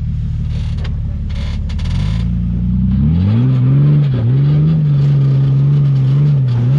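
Rock crawler's engine running at low, steady revs, then revving up about two and a half seconds in and holding higher revs with a few brief dips, under load as the vehicle climbs a steep rock ledge with its front wheels in the air.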